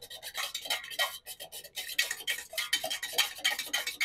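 A utensil stirring quickly around a stainless steel saucepan of melted beeswax and oil, a rapid run of scraping clinks against the pan's sides and bottom, several strokes a second.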